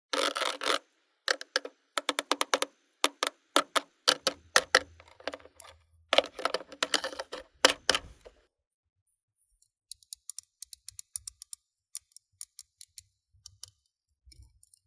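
Slime being mixed and squished, giving quick runs of sticky pops and clicks. The clicks are dense and loud at first, then thin out to fainter, sparser ones in the second half.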